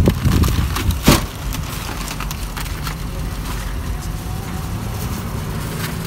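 A metal wire shopping cart and plastic grocery bags being handled: rumbling and rustling with scattered clicks, and one sharp clack about a second in. After that a steady low hum of outdoor parking-lot noise continues.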